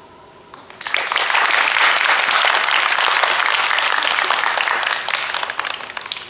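Audience applauding: many people clapping, starting about a second in, holding steady, then dying away near the end.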